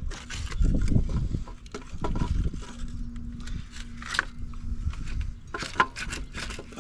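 Hand tools working on an engine's bolts: irregular metallic clicks, knocks and scrapes, over a faint steady hum.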